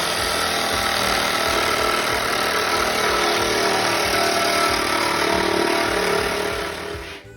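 A machine running steadily and loudly, with a fast low pulsing beneath a broad noise. It fades away near the end.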